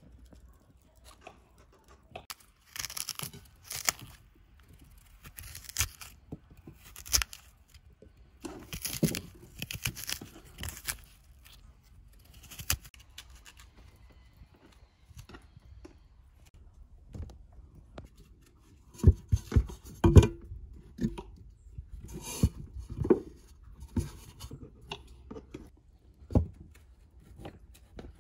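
Quinces being peeled and cut with knives: separate bursts of scraping and tearing, then a run of sharp knocks and clunks, the loudest about two-thirds of the way in.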